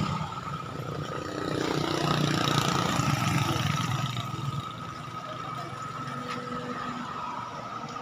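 A motor vehicle's engine running close by, growing louder about a second and a half in and dropping away after about four and a half seconds, with a steady high tone underneath.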